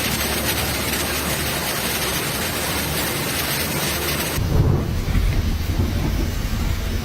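A dense, steady hiss of pouring water, cut off abruptly about four seconds in and replaced by low, gusty rumbling of wind on the microphone.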